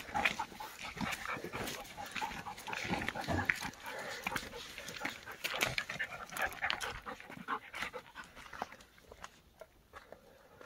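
Belgian Malinois dog panting while walking down a stony mountain path, with scattered footstep crunches and scuffs on rock and gravel that thin out after about seven seconds.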